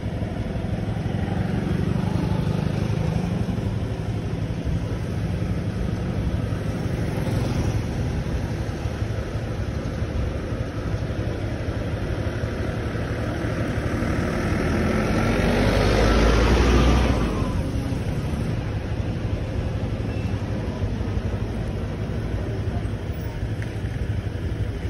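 Street traffic heard from a motorbike waiting in a line of cars: a steady engine and traffic rumble. A vehicle passes close by about fifteen to seventeen seconds in, growing louder and then dropping away.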